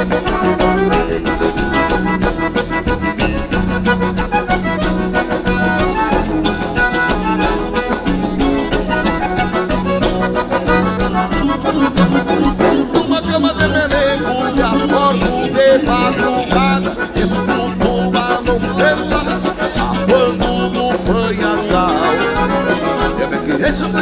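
Live gaúcho band playing an instrumental passage led by accordion, a piano accordion and a button accordion on stage, over electric bass, guitar and drums with a steady beat.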